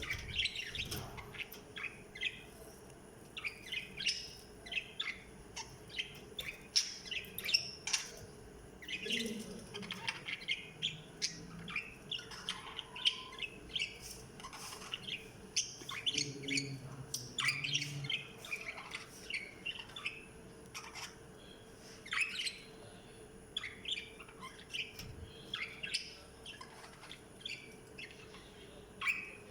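Pet budgerigars chirping and chattering: a steady stream of short, high chirps with brief pauses.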